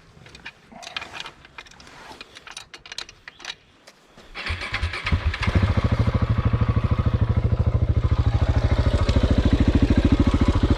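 A few light clicks and knocks, then about four seconds in a motorcycle engine is started. It catches after a couple of stutters and settles into a steady idle.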